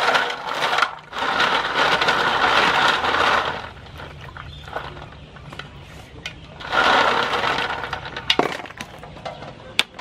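River snails being washed by hand in an aluminium basin of water: shells clattering against each other and the metal while the water sloshes, in two long stretches with a quieter spell between and a few sharp clicks near the end.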